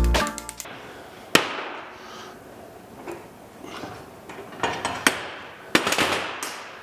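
Background music ends, then a few sharp metallic knocks and taps as the folded carbon steel pan's sides and corners are worked into place. There is one strong knock about a second and a half in, and a cluster of taps near the end.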